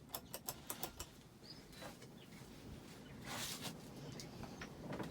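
1990 Hunter Original ceiling fan running at high speed, quiet with only a faint low hum. A quick run of light clicks sounds in the first second, and a short hiss comes a little past three seconds in.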